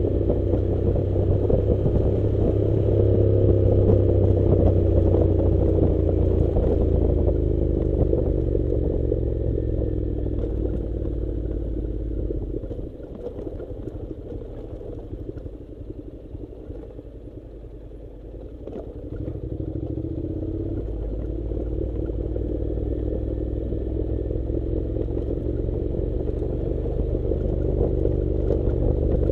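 Honda NC700 motorcycle's parallel-twin engine running on a ride over a loose-stone dirt track, with gravel clattering under the tyres. The engine note rises and falls early on. About halfway through it goes quieter for several seconds, then picks up again.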